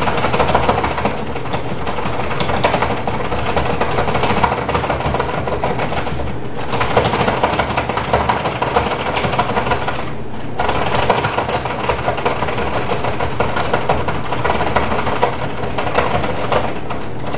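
Lock-pick rake jiggled rapidly in a door lock's keyway under tension, bouncing the pins: a fast, continuous metallic rattle. It stops briefly twice, about six and ten seconds in.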